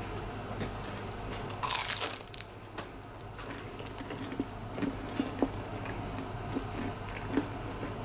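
A homemade fried samosa bitten into with a loud crunch of crisp pastry about two seconds in, followed by quieter chewing with small crackles.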